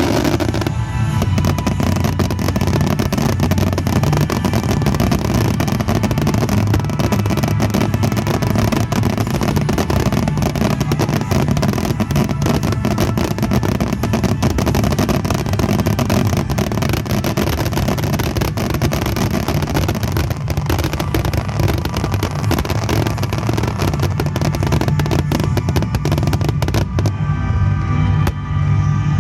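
A dense, unbroken fireworks barrage from a wide star mine: rapid-fire bursts and crackling packed closely together, with music playing underneath.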